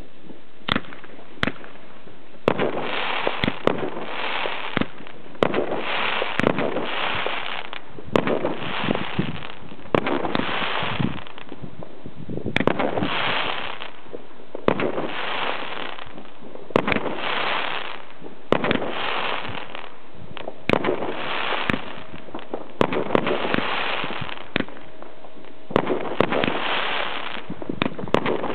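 Fireworks fired one after another: a sharp bang every second or two, each followed by about a second of hiss as the shells burst into sparks.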